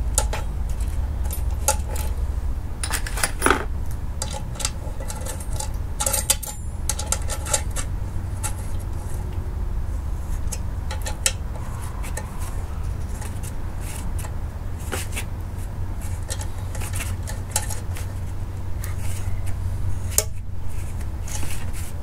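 Metal clinks and clicks from a mounting bracket, bolts and nuts being fitted by hand onto a CoolerWorx short-shifter box, coming irregularly in small clusters over a steady low rumble.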